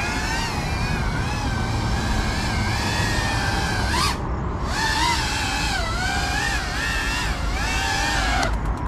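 Brushless motors and propellers of a GEPRC Cinelog 35 FPV cinewhoop drone whining, the pitch rising and falling as the throttle is worked, over a steady low rumble. About four seconds in, the whine rises sharply, cuts out for a moment and comes back. It drops away near the end.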